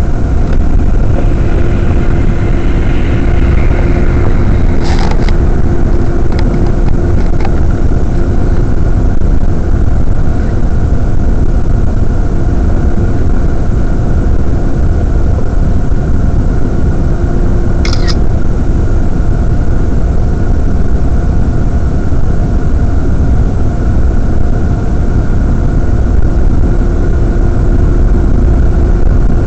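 Car cabin noise through a dash cam's microphone while driving slowly on an icy, slushy road: a loud, steady low rumble of engine and tyres with a faint steady hum over it. Two short sharp clicks, about five and eighteen seconds in.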